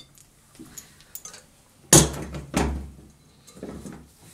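Glass mixing bowl knocking as it is taken off a stand mixer's base and set down on the worktop: a sharp knock about two seconds in, a duller knock just after, and a softer knock near the end.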